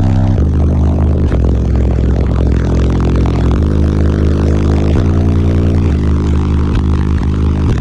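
Eight Concrete Audio C1 12-inch subwoofers in a sixth-order bandpass box, driven by a Taramps T12000 amplifier, playing a bass track loud. Sustained deep bass notes step from one pitch to another every second or so.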